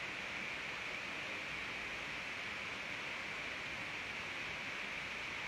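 Steady, even hiss with no other sound and no change in level.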